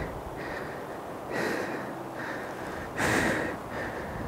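A man breathing hard, one breath roughly every second and a half, out of breath after climbing a large rock.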